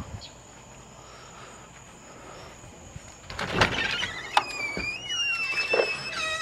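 A door being opened: a clatter about three seconds in, then a long squealing creak that slides slowly down in pitch.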